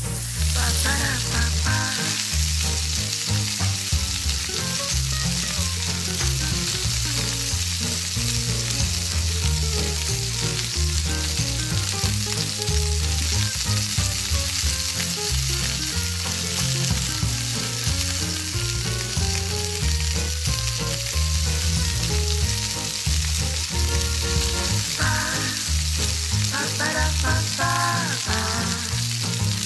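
Hot oil sizzling steadily in a miniature steel wok as thin sticks of dough deep-fry, with a skimmer stirring through the oil. Background music plays underneath.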